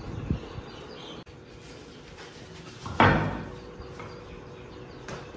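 A few low thumps at the start, then one loud bang about three seconds in that dies away over about half a second.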